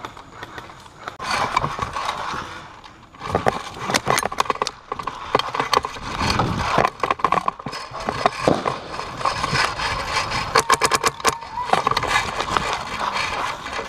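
Paintball markers firing in several bursts of sharp pops, the fastest a string of about ten shots a second late on. Under them are the knocks and rustle of a player moving across grass with his gear.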